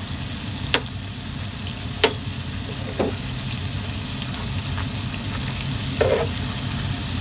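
Dough balls deep-frying in hot oil in a pot: a steady sizzle. Three sharp taps of the spatula against the pot come within the first three seconds as the balls are turned, and a duller knock about six seconds in.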